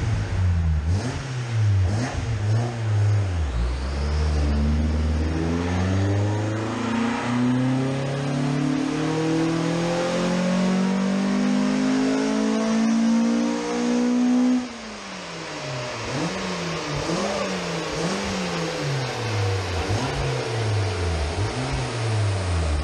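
Ford Focus ST170's 2.0-litre four-cylinder, breathing through individual throttle bodies, on a rolling-road dyno. It revs up and down a few times, then makes a full-throttle power run, climbing steadily in pitch for about ten seconds. The throttle shuts abruptly and the engine winds down.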